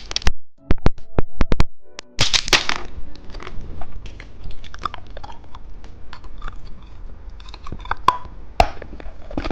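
Candy being bitten and crunchily chewed close to the microphone. There are sharp clicks in the first two seconds and a loud crackle about two seconds in, then steady small crunches.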